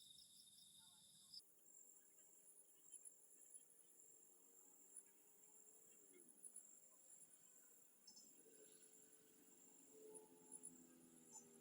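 Faint, steady chorus of crickets and other night insects chirping, with the high insect band changing abruptly a little over a second in. Faint low humming tones, one sliding down in pitch, rise in under the insects in the second half.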